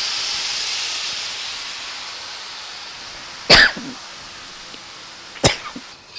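Cooked tripe and its cooking liquid sizzling in hot fried masala as it is poured into a wide pan, a steady hiss that slowly dies away. Two short, sharp sounds about two seconds apart cut through it.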